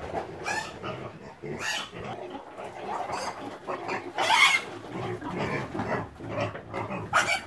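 Pigs squealing in a string of about five harsh cries, the loudest about halfway through.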